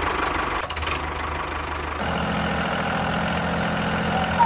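Tractor engine sound effect running steadily at idle-like revs, with a change in its note about two seconds in.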